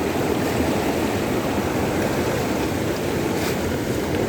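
Small seasonal stream in flood, swollen by a night of continuous rain: fast water rushing steadily.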